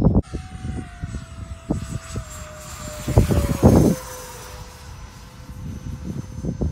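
Freewing F-35 RC jet's electric ducted fan whining as the model flies overhead, its pitch sliding down over the first few seconds and then holding steady. A few brief gusts of wind hit the microphone.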